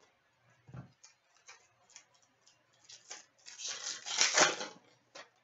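Trading card packs and cards being handled: scattered light clicks and rustles, then a louder crinkling rustle of packaging lasting about a second, near the end, as the next pack is opened.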